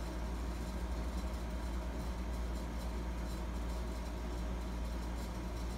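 A steady low mechanical hum, with a deep rumble and a faint constant drone above it, unchanging throughout.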